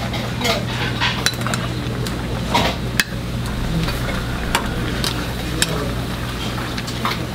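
A metal spoon clinking and scraping against metal pots as a cook stirs several pots of simmering stew on a gas range. The clinks come at irregular moments over a steady low hum.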